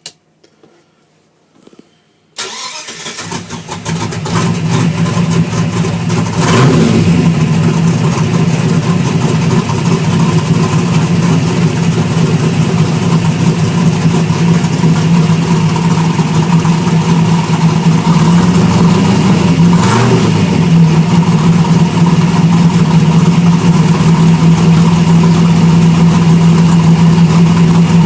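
Holden 253 V8 in a VC Commodore track car cranking about two seconds in, catching and running loud and steady, with two brief rises in revs. It is running with its fuel pump left switched off.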